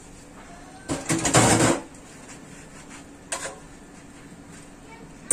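Steel bowls and pots being washed by hand in a stainless steel sink: a loud burst of clattering about a second in, a short knock around three seconds in, and another clatter at the very end, over a steady low hum.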